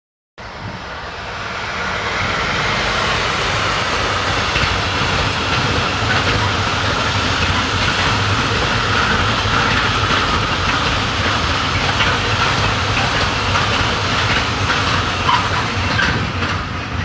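Freight train wagons rolling past at speed: a steady rumble and hiss of steel wheels on rail with a repeating clicking of the wheelsets. It comes in suddenly, builds over the first couple of seconds and starts to fade near the end as the last wagons go by.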